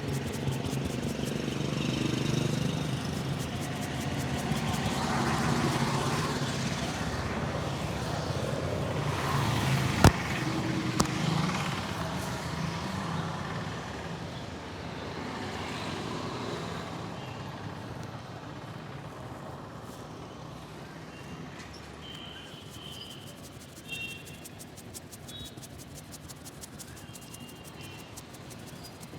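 Street traffic running past, a low rumble that fades through the second half, with two sharp snaps about a second apart a third of the way in.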